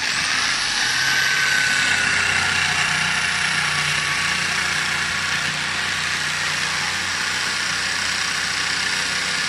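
Electric jigsaw switched on and cutting through a thick wooden plank. Its pitch rises as it starts, then settles a little lower and runs steadily as the blade saws through the wood.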